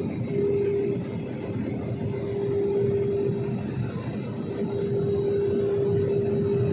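Jet airliner cabin noise from a window seat in flight: the steady rush of the engines and airflow, with a steady droning hum tone over it.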